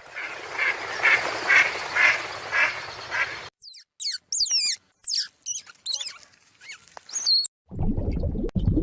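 Animal calls in quick succession: a run of calls about twice a second over a rough noisy background, then a few seconds of quick, very high chirps that sweep downward, then a low rough sound near the end.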